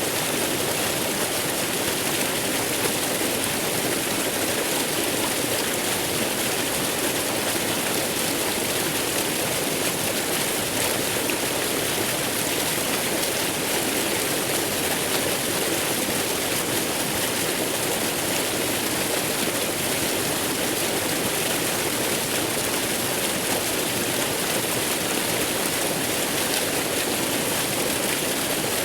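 Waterfall: a steady, even rush of falling water with no breaks or changes in level.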